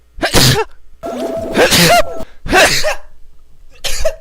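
A man sneezing loudly about four times in quick succession, each sneeze a sharp noisy blast carrying a voiced cry, the second one longer than the rest.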